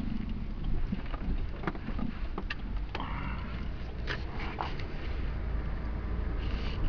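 Low, steady outdoor rumble with scattered sharp clicks, and a brief higher warbling sound about three seconds in.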